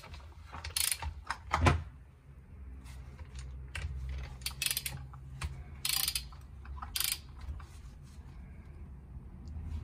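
Socket ratchet wrench clicking in short bursts as it is swung back and forth, tightening the cylinder head nuts on a 250 cc ATV engine. There are five or so bursts, each a second or so apart.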